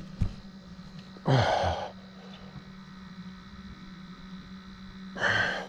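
A man breathing out hard twice, straining, about a second in and again near the end, from the effort of hoisting a heavy flathead catfish in a landing net on a hand scale. A steady low hum runs underneath.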